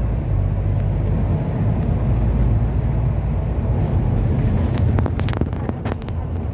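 Bus driving along a city road: a steady low engine and road rumble, with a few short rattles about five seconds in.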